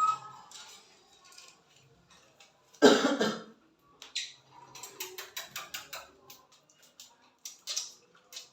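One loud cough-like burst about three seconds in, followed by rapid, short, high chirps and chatter from caged Fisher's lovebirds and budgerigars.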